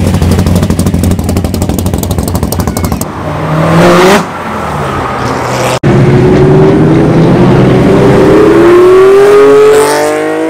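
Performance cars with loud exhausts pulling away. First a rumbling exhaust close by with a short rev, then a car accelerating hard, its engine pitch rising steadily for about four seconds before a gear change near the end.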